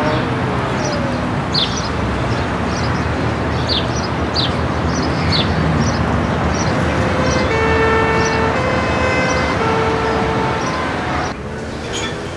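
City traffic noise, with a two-tone emergency siren alternating between two pitches from about seven seconds in. The street sound drops away sharply about a second before the end.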